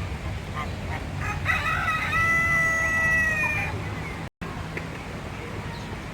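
A rooster crowing once: a single drawn-out cock-a-doodle-doo lasting about two seconds, starting a little over a second in.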